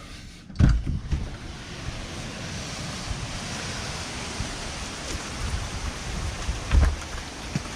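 Strong wind and rain from a hurricane's outer band, setting in suddenly about half a second in as a steady rushing. The wind buffets the microphone, with heavy low thumps at the start and near the end.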